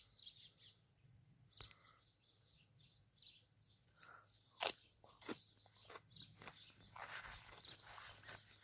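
Small birds chirping faintly in short high calls, with a few sharp snaps or crunches midway, the loudest a little under five seconds in, and a rustling from about seven seconds in.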